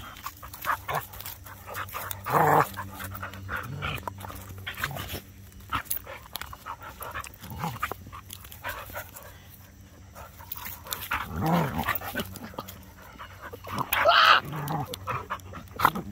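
Several dogs play-fighting at close range, scuffling and growling, with short loud vocal bursts a couple of seconds in, around eleven seconds, and loudest about two seconds before the end.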